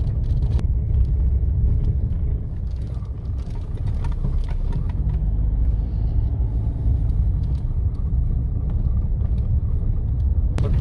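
Car driving off-road over a sandy desert track, heard from inside the cabin: a steady low rumble of engine and tyres, with scattered short knocks and rattles.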